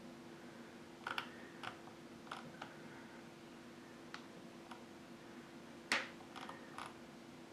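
Faint, scattered clicks of a computer being used to scroll down a web page: about a dozen irregular clicks, the loudest about six seconds in, over a faint steady hum.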